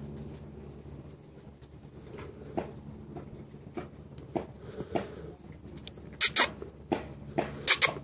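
Kitten moving about on a hard floor and carpet: scattered light taps and scratches of small paws and claws, with a few sharper, louder clicks about six and seven and a half seconds in.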